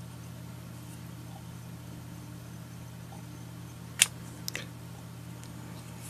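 Steady low background hum, like a fan or mains equipment running, with one sharp click about four seconds in and two faint ticks just after.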